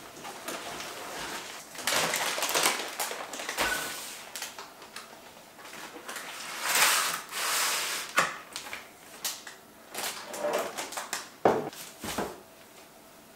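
Groceries being unpacked from a canvas shopping bag: the bag and plastic packaging rustle and crinkle, and several sharp knocks sound as cans, jars and tubs are set down on the kitchen counter, the loudest near the end.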